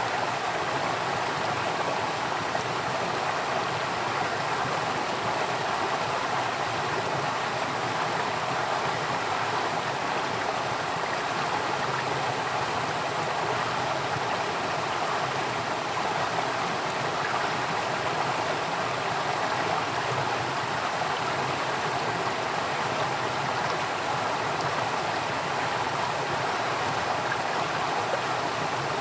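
Water flowing steadily in a stream, an even continuous rushing and babbling with no change in level.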